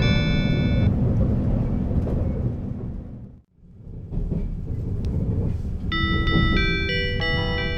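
Running noise inside a 485 series electric train car, a steady low rumble, with the onboard classical melody chime playing over the public-address speakers: one chime ends about a second in and another begins about six seconds in. The sound drops out briefly about three and a half seconds in at an edit between recordings.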